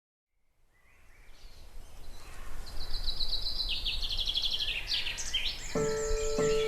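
Birdsong fading in from silence: quick trilled and chirped phrases from songbirds over a low outdoor rumble. Near the end, music comes in with a held note and a light beat.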